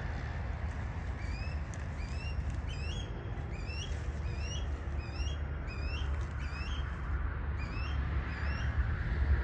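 A bird calling over and over, short upward-hooking chirps about twice a second, starting about a second in and stopping near the end, over a steady low rumble.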